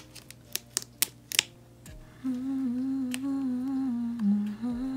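A few sharp clicks as cards and stickers are handled, then about two seconds in a woman's voice holds one long, slightly wavering sung note, a drawn-out "tiiiime".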